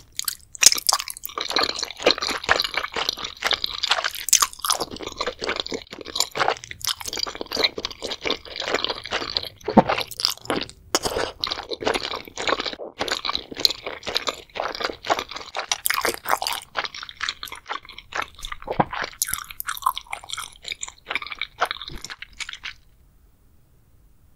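A person chewing a mouthful of spicy seafood boil with wide glass noodles close to the microphone: a dense, irregular run of wet crunches and clicks that stops about two seconds before the end.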